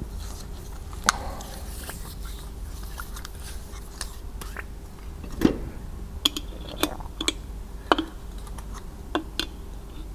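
Scattered light clicks and taps of a piston and connecting rod being handled and a pump oil can being worked to squirt two-stroke oil onto it, with a cluster of clicks about six to eight seconds in. A low steady hum lies underneath.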